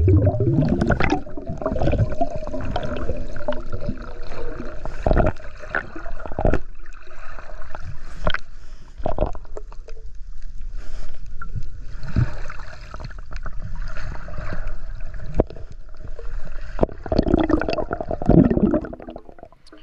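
Muffled underwater water noise picked up by a submerged action camera: gurgling and sloshing as the swimmer moves through the water, with scattered sharp clicks and knocks. A bout of bubbly gurgling comes near the end.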